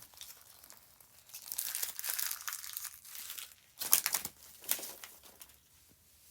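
Plastic toy packaging being handled, crinkling and rustling, with a louder run of sharp crackles about four seconds in.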